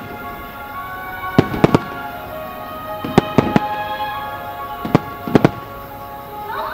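Aerial firework shells bursting in three quick clusters of two or three sharp bangs, about one cluster every two seconds, over background music with held notes.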